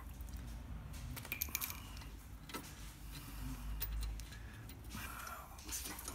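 Light metallic clicks and rattles as an aftermarket motorcycle footpeg and its pivot hardware are handled and fitted onto the footpeg bracket. The clicks are scattered, with a cluster about a second in.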